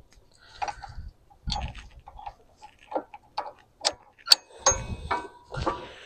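Scattered metal clicks and clinks as hitch pins and sway-link hardware on a tractor's three-point hitch are worked by hand while a cotter pin is pulled and the link taken off. A few sharper ringing metal clinks come about four to five seconds in.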